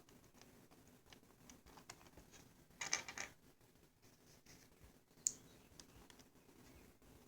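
Faint clicks of keyboard key switches being pressed, with a louder rattling clatter about three seconds in and one sharp click a couple of seconds later.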